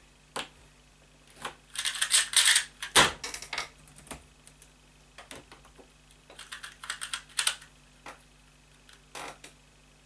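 Qiyi Wuxia 2x2 speedcube being turned rapidly during a solve: quick runs of clacking plastic turns in two main bursts, with single clicks between and a louder knock about three seconds in.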